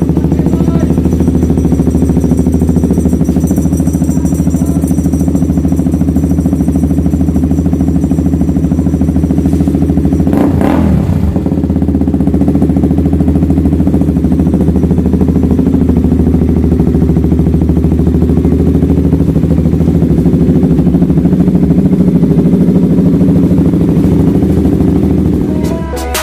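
KTM RC 200's single-cylinder four-stroke engine running steadily at idle through an SC Project open exhaust with no silencer, loud, with one brief louder burst about ten seconds in.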